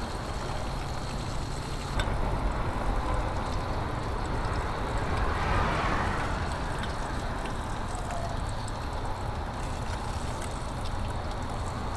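Fish frying in a small pot of hot oil on a backpack propane burner, under a steady low rumble of wind on the microphone. There is a single sharp click about two seconds in.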